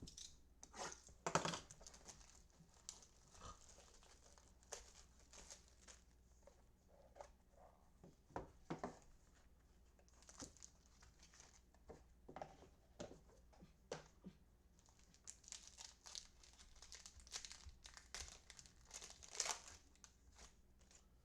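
Faint, scattered crinkling and rustling as baseball card packs and cards are handled, with a few short clicks.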